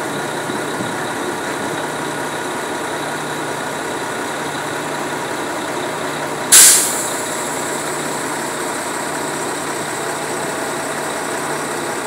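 Diesel engine of a Zoomlion truck-mounted concrete boom pump running steadily. About six and a half seconds in comes a short, loud hiss that fades within half a second.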